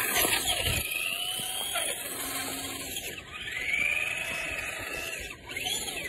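Traxxas Slash RC short-course truck's electric motor whining, rising and falling in pitch several times as the throttle is worked.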